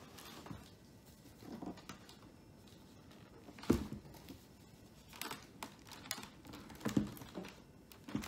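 A hand in a disposable plastic glove handling and wiping a monitor's round stand base: scattered soft taps, knocks and rubbing with glove crinkle. The loudest knocks fall a little under four seconds in and about seven seconds in.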